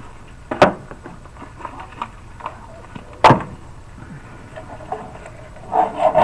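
An egg frying in a nonstick pan, with a faint sizzle and small spatter ticks, broken by two sharp knocks about two and a half seconds apart. Near the end a spatula scrapes under the egg in the pan.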